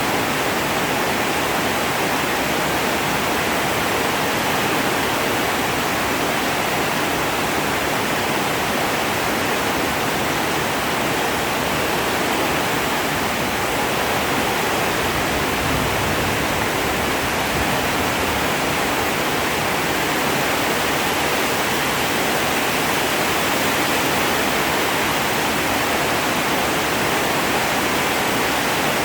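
Heavy rain falling in a steady downpour, an even hiss with no thunderclaps.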